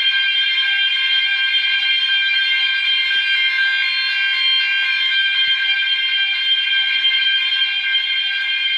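Building fire alarm sounders going off in alarm, a steady, unbroken multi-tone sound. The fire alarm system is in its activated state while its link to the elevator is being tested.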